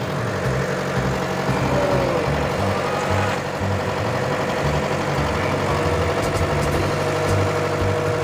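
An engine aboard a lift-net fishing boat running steadily with a continuous low drone.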